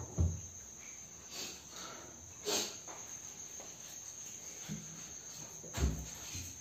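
Teak (sagwan) kitchen cabinet doors being opened and shut by hand, with a sharp knock just after the start, another at about two and a half seconds and a double knock near the end. A cricket trills steadily underneath.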